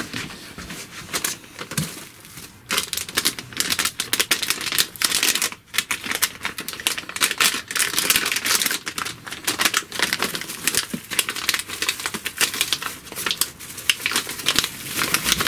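Plastic packaging crinkling and rustling as it is handled: a bubble-wrap pouch and small plastic bags being pulled from the box, a dense run of small crackles.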